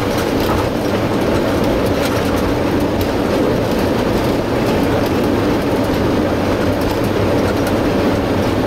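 Boeing 737-800 rolling out on the runway just after touchdown, heard inside the cockpit: a steady, loud rumble and rush of engines, airflow and wheels on the runway.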